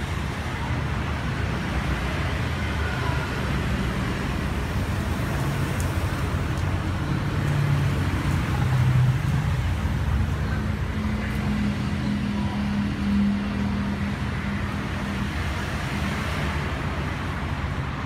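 Steady road-traffic noise: a continuous rumble of vehicles with an engine hum that grows stronger and rises in pitch around the middle.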